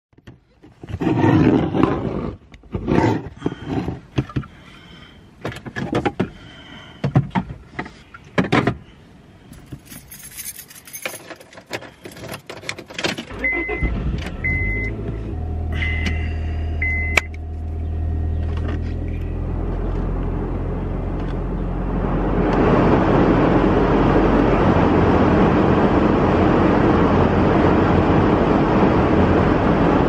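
Car cabin sounds: clicks and knocks at first, then the car's engine starts about a third of the way in and idles with a low steady hum. Four short warning-chime beeps follow. Near the end a loud steady rush of air sets in over the idle.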